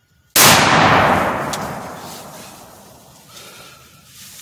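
A single shotgun shot, sudden and very loud, whose echo dies away over the next couple of seconds.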